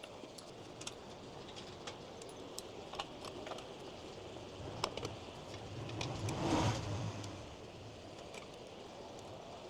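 Scattered light metallic clicks and clinks of screws and a screwdriver being handled, while a vehicle passes by, swelling to a peak about two-thirds of the way in and fading away.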